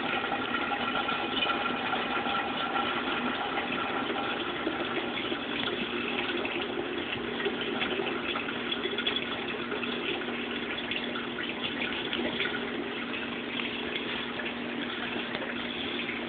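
Steady rush of circulating water in a saltwater reef aquarium, with a low steady hum underneath.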